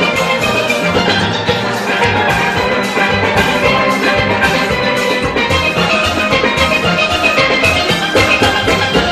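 A full steel orchestra playing live: massed tenor and mid-range steel pans carry a fast melody over the boom of bass pans and a steady drum beat.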